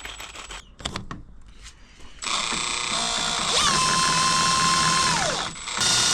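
Electric boat-motor setup run through its controller: a few handling clicks and knocks, then a loud motor whine that rises in pitch, holds steady for a couple of seconds and winds down, followed by a second steady burst.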